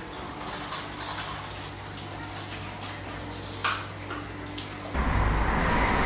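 Low steady hum with a faint water trickle from a running aquarium filter pump, and a few light clicks. About five seconds in, a much louder steady rushing noise abruptly cuts in.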